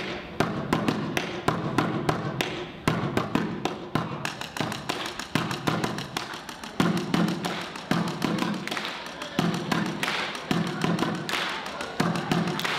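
Bucket drumming: drumsticks beating a fast, rhythmic pattern of sharp taps on buckets, with deeper strokes falling at regular intervals through the second half.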